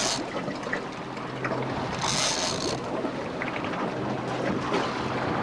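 Steady low hum of a fishing boat's engine with wind and water noise, and a brief hiss about two seconds in.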